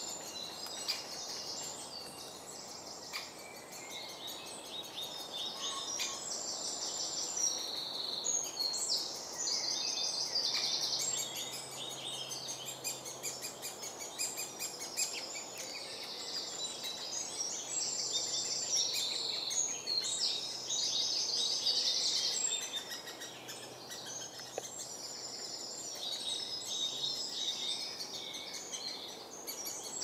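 Great spotted woodpecker nestlings begging from inside the nest hole while an adult feeds them. Their calls come as high, buzzy chattering in repeated bursts of rapid notes.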